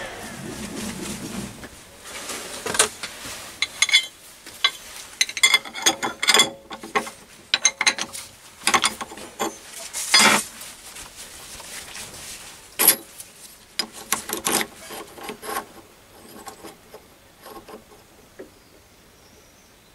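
Irregular metallic clicks, knocks and scrapes as a steel workpiece is handled and worked loose from an ER collet chuck on a stopped lathe. They come thickest in the first two-thirds and thin out near the end.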